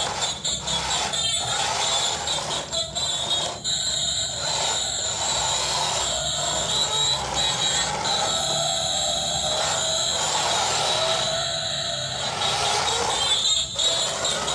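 Electric whine of a small toy RC truck's battery-driven DC motors as it drives over a concrete floor, breaking off and starting again several times.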